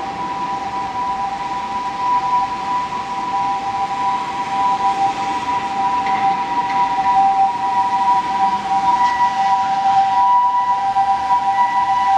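A steady electronic alarm tone of two pitches sounding together, held without a break, over a background hiss; a fainter higher tone comes and goes.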